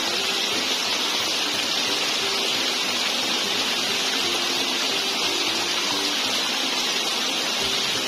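Shallow stream water rushing steadily without a break, swirling around a scoop net held in the current.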